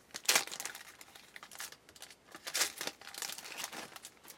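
Crinkling and tearing of a baseball card pack's wrapper being opened, in several short rustling bursts.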